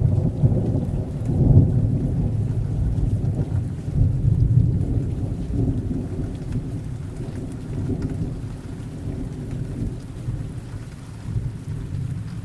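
Thunder rumbling over steady rain, the rumble loudest in the first couple of seconds and slowly dying away.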